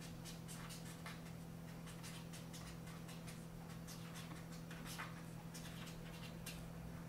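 Pen writing on a small paper note card laid on a hard tabletop: a quick run of short scratching strokes that stops about six and a half seconds in.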